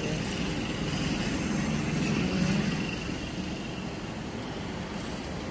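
Steady outdoor city background noise: a low rumble like distant traffic, swelling slightly about two seconds in and then easing, with a faint steady high hum.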